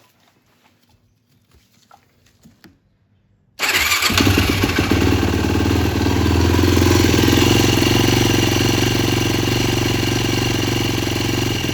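Yamaha YFZ 450 ATV's single-cylinder four-stroke engine starting suddenly about three and a half seconds in, then running steadily. It has just been refilled with fresh oil and is run briefly to check for leaks.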